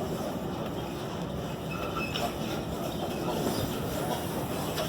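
Intercity passenger train hauled by a Class 90 locomotive running along the line: a steady rumble of wheels on the rails, with a brief faint wheel squeal about two seconds in.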